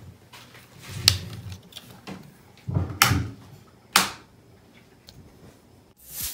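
Wall light switches being flipped: three sharp clicks, about a second in, at three seconds and at four seconds, with fainter clicks between and a low rumble around them.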